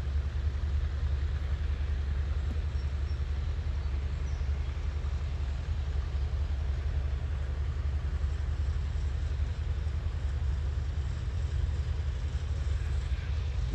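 Steady low rumble of a Ford 4110 tractor running in the distance with a New Holland 489 mower-conditioner, mixed with wind buffeting the microphone.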